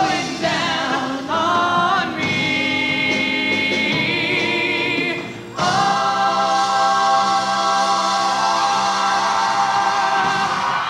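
Show choir singing with male soloists on microphones. After a short break about five and a half seconds in, the full choir holds one long, steady final chord.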